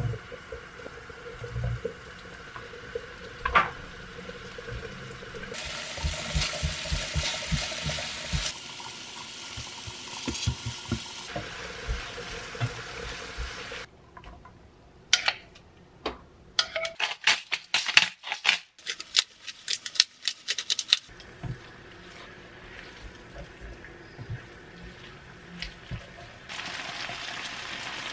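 Cooking in a frying pan: oil sizzling around cherry tomatoes, brie and herbs, and a wooden spoon stirring and scraping. Around the middle comes a run of sharp clicks and knocks as boiled spaghetti goes into the pan.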